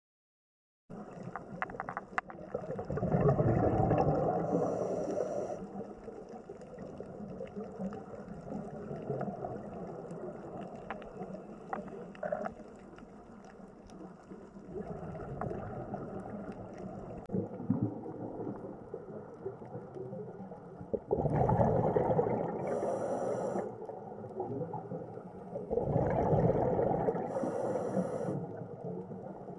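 Underwater ambience: a steady watery hiss, with three louder rushing surges of a few seconds each, one about three seconds in and two near the end, typical of a scuba diver's exhaled bubbles.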